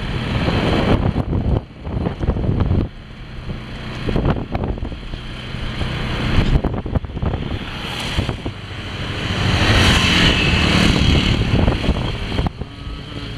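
Motorbike ride through city traffic: engines running and passing vehicles, with wind rushing over the microphone. It grows louder about two-thirds of the way through.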